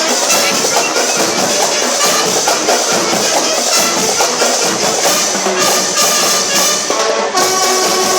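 Loud music with drums and percussion playing steadily, with a brief break a little after seven seconds followed by held notes.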